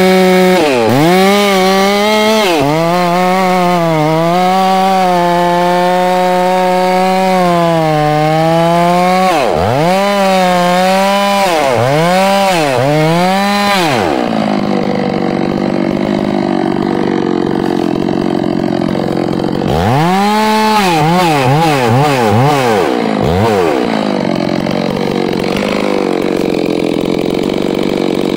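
Ported Farmertec G660 two-stroke chainsaw (a Stihl 660 clone) at high revs, cutting through a large stump. Its note dips under load and climbs back again and again.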